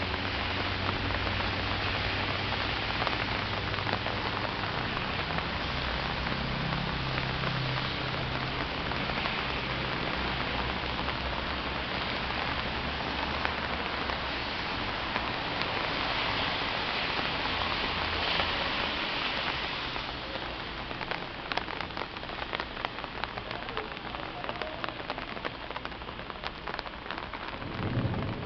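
A steady hiss with a low hum under it in the first half. In the last third the hiss grows a little quieter and is dotted with many small ticks.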